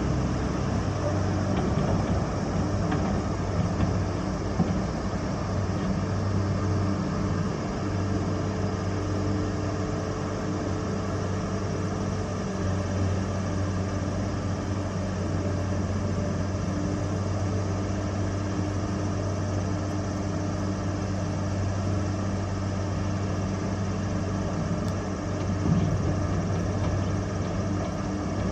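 Steady low drone of heavy diesel machinery heard across the water: the work boat and its Hitachi EX1100 excavator running at a constant pitch, with a couple of faint knocks.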